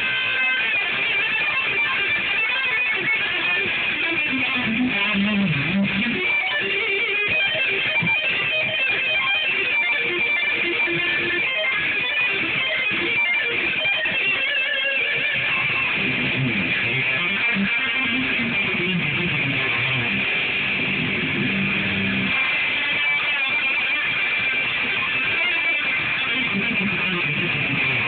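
Electric guitar played through an amplifier: shred-style lead playing, continuous, with no pauses.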